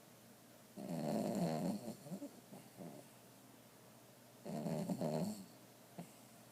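Bulldog snoring in its sleep: two snores a little under four seconds apart, each lasting about a second.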